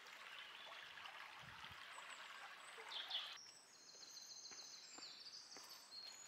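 Faint woodland ambience: a shallow stream trickling in the first half, then a songbird singing a high, fluttering phrase for about two seconds.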